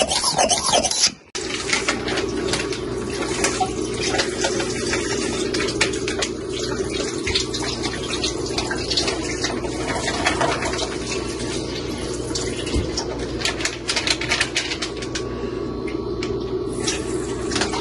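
Briefly at the start, a hand vacuum pump sucking air out of a zip-top bag. Then a sous vide immersion circulator runs in a stainless pot of water: a steady whir with water swirling and bubbling as it heats the bath.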